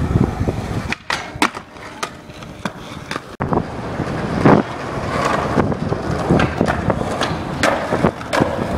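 Skateboard wheels rolling over pavement, with sharp clacks of the board hitting the ground as tricks are popped and landed.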